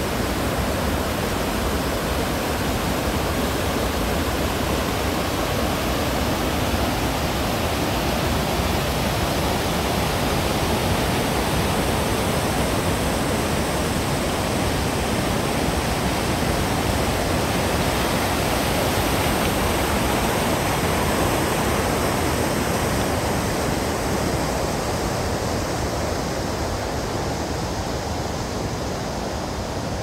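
Steady rushing of the falling water at Niagara Falls, a dense, even noise that grows a little fainter near the end.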